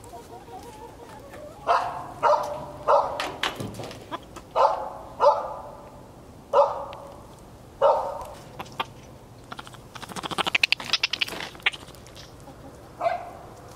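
Hens in a chicken coop squawking, disturbed by the monkey on the coop: a series of about seven loud calls, each dropping in pitch, then a quick run of sharp clucks and one more call near the end.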